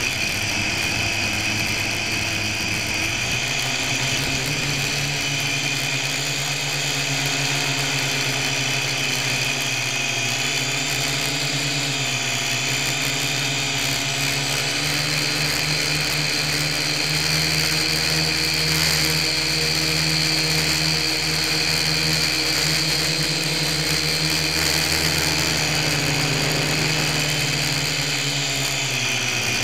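Syma X1 quadcopter's four small electric motors and propellers whining steadily in flight, heard close up from a camera mounted on the airframe, with the pitch drifting up and down a little as the motor speeds change.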